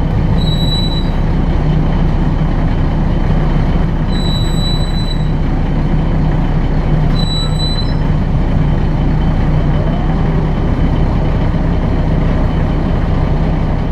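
Articulated city bus heard from inside the passenger cabin while it drives along: a steady engine and road drone with a low hum. Brief high-pitched squeals come about half a second in, again around four seconds and once more around seven seconds.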